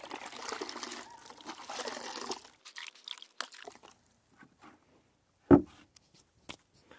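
Hands working wet diapers in a plastic bucket of wash water: water sloshing and dripping for about two and a half seconds. Then a few small knocks, and a single thump about five and a half seconds in.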